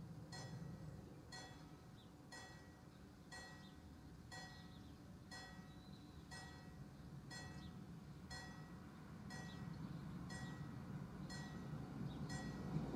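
Level-crossing warning bell striking about once a second, each stroke ringing briefly, as the crossing warns of an approaching train. A low rumble builds toward the end as the train nears.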